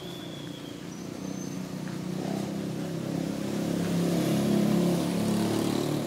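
A motor vehicle engine passing close by, growing louder to a peak about four and a half seconds in and then fading.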